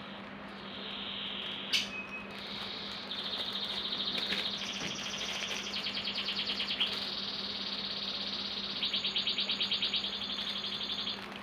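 A songbird singing: a long run of high, fast trills that hold one pitch for a second or two and then jump to another. There is a sharp click about two seconds in, over a steady low hum.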